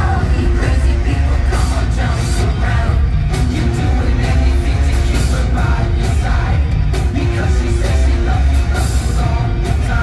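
Loud live rock music with singing and heavy, driving drums and percussion.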